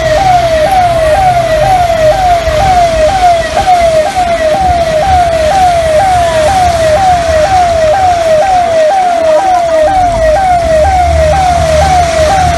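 Siren in a fast yelp, a rising wail repeating about twice a second, over a low rumble.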